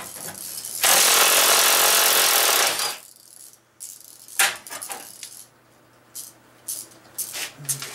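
A handheld power tool runs in one loud burst of about two seconds, then a few scattered clicks and knocks of parts being handled.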